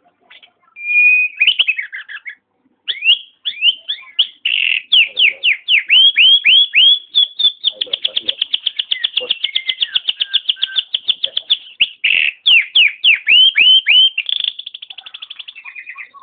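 Nias hill myna giving a long run of loud whistled notes, each sweeping down in pitch, that speed up into a rapid, even trill in the middle and again, more softly, near the end.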